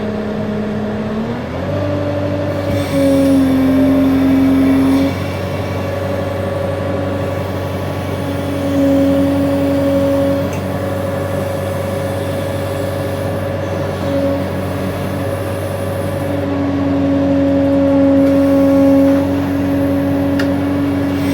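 Case 580N backhoe loader's diesel engine revving up about a second and a half in, then running steadily under load. A higher whine swells and fades several times as the hydraulics are worked.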